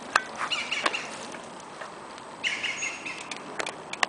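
A bird chirping in two short trilling phrases, with scattered small clicks and crackles in between.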